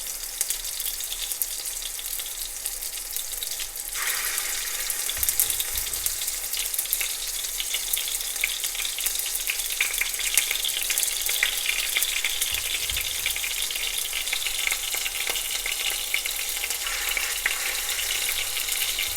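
Chicken balls frying in hot oil in a pan: a steady crackling sizzle that grows markedly louder about four seconds in.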